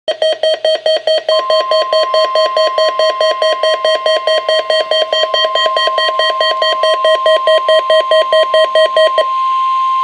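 NOAA weather radio receivers alarming for a Required Monthly Test of the Emergency Alert System. A rapid pulsed electronic beep, about four to five beeps a second, is joined about a second in by a steady single-pitch tone, the weather radio warning alarm tone. The beeping stops about 9 s in while the tone holds on.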